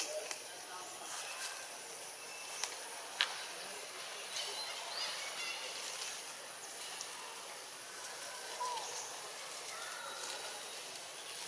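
Outdoor natural ambience: a steady high insect drone with scattered short high chirps and a few sharp clicks.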